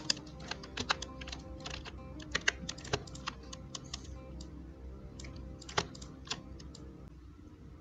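Computer keyboard keys and mouse buttons clicking irregularly as shortcuts are pressed, thick over the first three seconds or so and sparse after about five seconds, with soft background music underneath.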